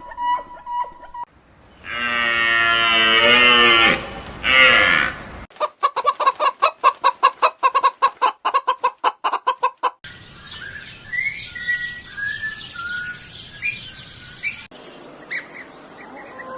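A string of different animal calls cut one after another: a loud drawn-out call that falls in pitch, then a fast run of even pulsed calls about five a second, then scattered bird chirps.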